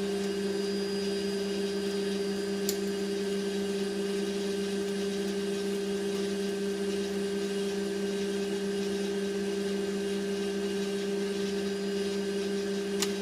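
Steady, unchanging low hum, with a faint click about two and a half seconds in and another near the end.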